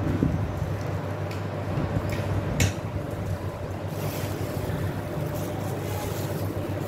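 A steady low mechanical hum, with a single short clink about two and a half seconds in.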